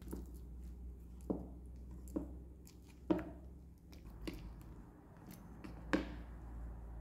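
Metal fork mashing bananas into soy-milk-soaked oats in a bowl, with squelching and sharp clicks of the fork striking the bowl about once a second, loudest about three seconds in and near the end.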